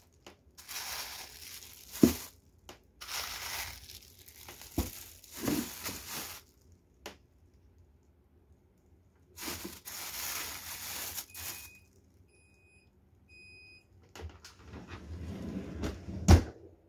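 Plastic bags of frozen salmon and other frozen food crinkling and rustling as they are handled and packed into a freezer drawer, in several bursts with a thump each time a bag is set down. Midway come three short electronic beeps, and near the end there is a heavier thump.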